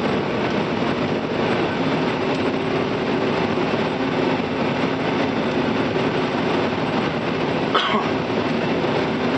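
Combine harvester running while harvesting soybeans, heard from inside the cab: a steady mechanical drone, with one brief click near the end.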